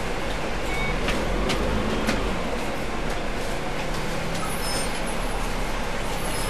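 A double-decker bus's diesel engine idling with the bus at a standstill, a steady low hum with a few light clicks and rattles about one to two seconds in.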